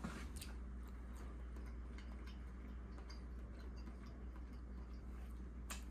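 Faint, irregular wet clicks of someone chewing a small piece of pan-fried turkey heart, over a steady low electrical hum.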